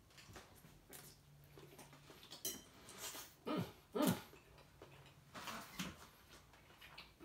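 Utensil clicking and scraping against a salad bowl as a bite of salad is picked up, a few light clicks spread through. About three and a half seconds in come the two loudest sounds: two short low sounds that fall in pitch.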